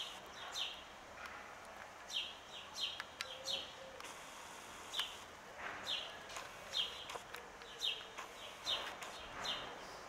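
Small birds chirping: short, high notes that fall in pitch, repeated every half second or so.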